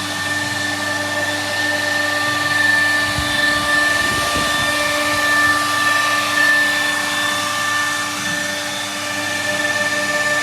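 CNC router spindle running at speed while milling wood: a steady high whine over a hiss.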